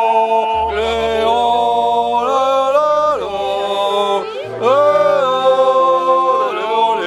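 A song playing, with long held sung notes that slide and step between pitches over a steady low bass.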